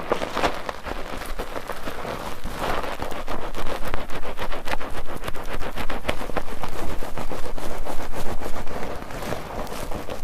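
Bar soap being worked into lather in a foaming net: a continuous wet, crackling squish of many small bubbles. It grows louder in the middle and eases again near the end.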